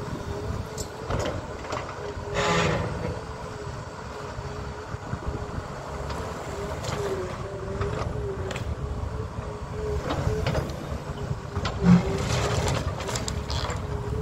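Heavy demolition machinery working, its engine running with a steady, slightly wavering whine. Scattered crashes and clatter of debris ride over it, the loudest a thud about twelve seconds in.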